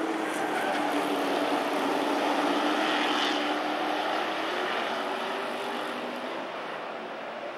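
Super Pro race trucks' engines running hard together on the oval, their pitch sinking slowly over the first few seconds and the sound growing a little fainter near the end.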